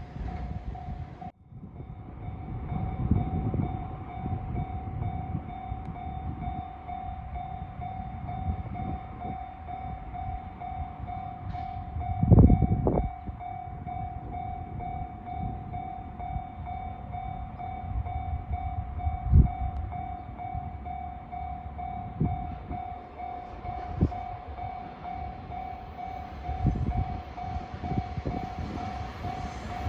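Level crossing warning alarm starts about a second and a half in and rings on as a steady, rapidly repeating electronic ding, signalling that a train is approaching. Underneath is a low rumble with a few short thumps, the loudest about twelve seconds in.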